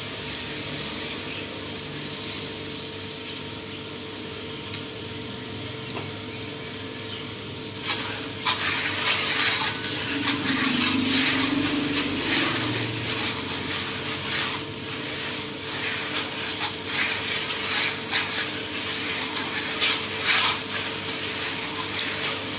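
Freshly roasted coffee beans being stirred with a spatula in a plastic basin: a rattling, scraping clatter of beans in uneven strokes that starts about eight seconds in.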